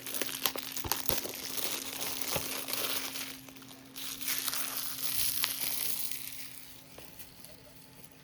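Mail packaging being crumpled and handled, a dense crinkling crackle with scattered clicks, pausing briefly midway and dying down near the end.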